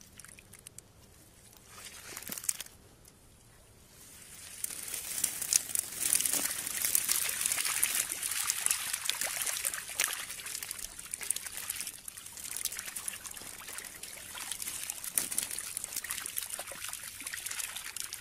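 Dozens of small fish flapping and slapping on wet mud as a full cast net is emptied, with water dripping from the mesh: a dense, crackling patter of many small slaps that sets in about four seconds in.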